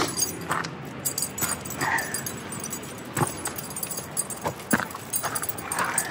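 A dog on a leash close by, making short sounds as it walks, with footsteps on a gravel path.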